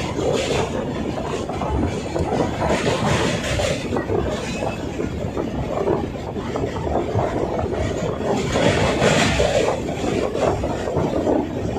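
A train running across a steel truss rail bridge, heard from inside the coach: a steady rumble and clatter of wheels on the rails. The noise swells into a brighter hiss a few times, most strongly about three and nine seconds in.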